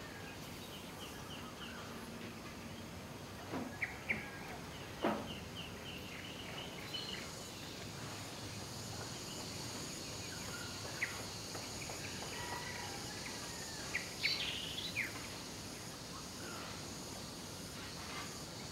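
Outdoor ambience: a steady background hiss with a faint high insect drone, and a few short bird chirps, a cluster about four seconds in and another around fourteen seconds.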